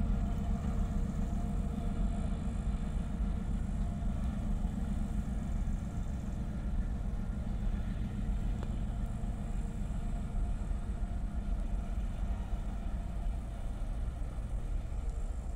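Diesel locomotive engines of a slow freight train running with a steady drone over a low rumble, easing off slightly near the end.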